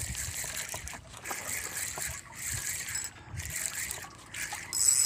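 Faint wind and water hiss with a few light handling clicks around a spinning reel. Near the end a loud burst of TV-static hiss with a steady high tone cuts in.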